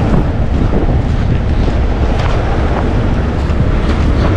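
Wind buffeting the microphone, a loud, ragged low rumble.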